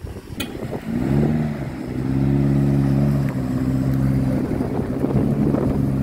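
Nissan Terrano's engine revving up about a second in and then held at a steady high speed under load as the SUV pulls through deep mud. A short sharp click comes just before the engine picks up.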